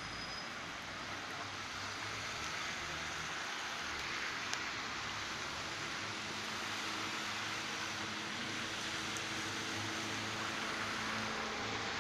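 Heavy rain falling, a steady hiss with a faint low hum beneath and a couple of light ticks.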